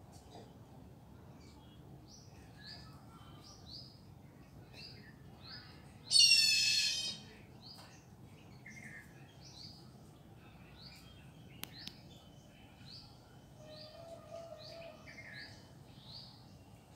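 Garden birds chirping, short rising notes repeated about twice a second throughout. About six seconds in, a loud, harsh call lasting about a second stands out as the loudest sound, and a single sharp click follows midway.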